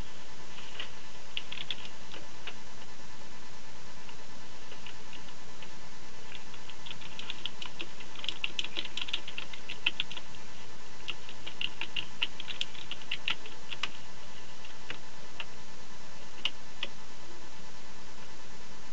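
Typing on a computer keyboard: quick runs of key clicks with pauses between them, then a few single clicks later on, over a steady background hum.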